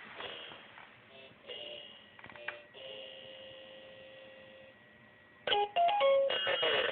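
Electronic fridge toy sounding through its small speaker: a faint steady hum with a held electronic tone in the middle, then loud choppy beeping bursts that jump in pitch near the end.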